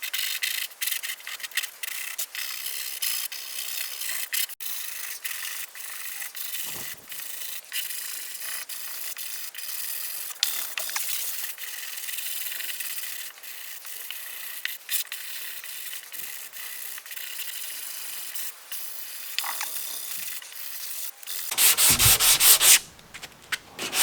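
Sandpaper being rubbed over cured body filler on a truck panel in many short, irregular strokes. The sanding gets clearly louder about three seconds before the end, then briefly drops away.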